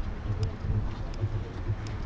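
Wind buffeting the microphone, with regular low footstep thumps about three a second while walking.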